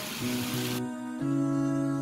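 Chicken fillets sizzling on a hot electric grill plate over background music; the sizzle cuts off suddenly about a second in, leaving the music's long held notes.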